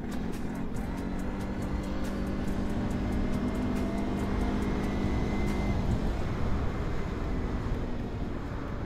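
CFMoto CForce 800 ATV's V-twin engine running steadily while riding, its pitch creeping up slightly in the middle, with a rushing haze of wind over the microphone.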